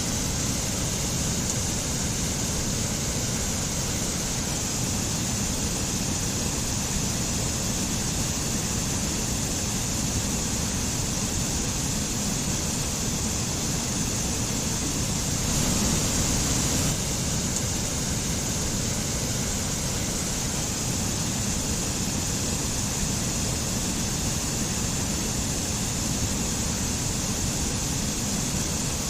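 Mountain stream with a small waterfall, water rushing steadily over rocks, briefly a little louder about halfway through.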